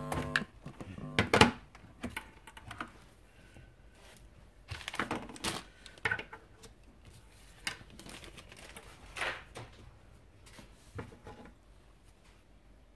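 Handling noise on a wooden desk: an audio cable being unplugged and objects picked up and set down, a scatter of knocks and rustles with the loudest knock about a second and a half in.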